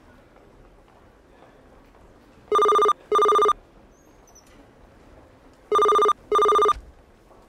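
A telephone ringing with an electronic double ring: two short, loud rings in quick succession, heard twice about three seconds apart.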